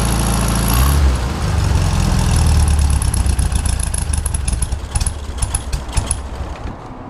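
1971 VW Beetle's air-cooled flat-four engine running. About a second in its note changes and it runs louder for a couple of seconds. It then turns uneven and ragged with irregular pops and dies away near the end.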